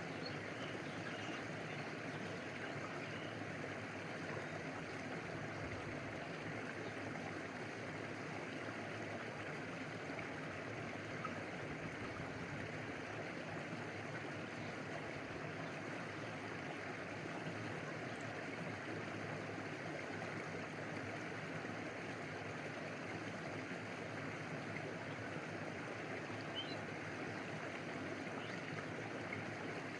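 Stream water flowing steadily, an even rushing with water lapping close by and a small waterfall cascading further off.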